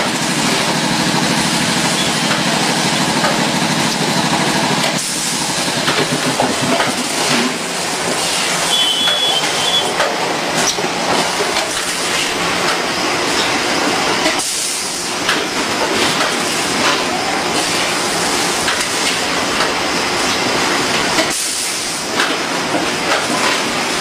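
Automatic 25 kg bag weighing and filling line running: a steady, loud mechanical din with frequent clicks and knocks. A hum runs for the first few seconds, and a short high beep-like tone comes about nine seconds in.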